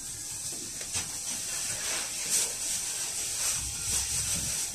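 Cabin noise inside a GAZelle Next minibus with an Evotech 2.7 petrol engine, standing or creeping in traffic: a steady hiss over a low engine rumble that swells near the end.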